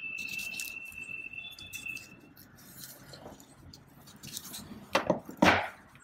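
RJ45 crimping tool squeezed shut on a plug at a CAT6 cable end, crimping the plug's pins onto the wires: a high steady squeak with rubbing for about two seconds, then a few sharp clicks near the end.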